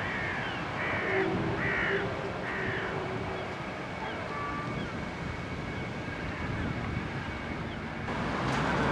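Wind noise and a steady distant rumble, with a bird calling four short falling calls in the first three seconds. The rushing noise grows louder near the end.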